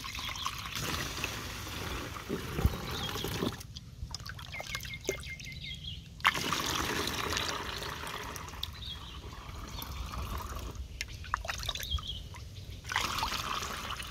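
Rice-washing water being poured from a bowl through a plastic funnel into a plastic drinking-water bottle, trickling and splashing in the funnel. The flow eases off twice, each time for a couple of seconds.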